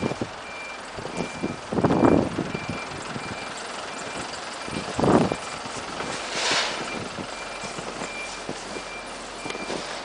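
A vehicle's reversing alarm beeping in a steady, even rhythm. Boots crunch through deep snow, loudest about two seconds in and again about five seconds in, with a short hiss a little after six seconds.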